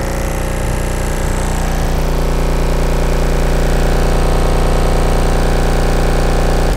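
A 30 Hz bass test tone played loud through an RE Audio 15-inch subwoofer in a car's boot: a steady, very deep drone with a buzz over it. It cuts off suddenly at the end.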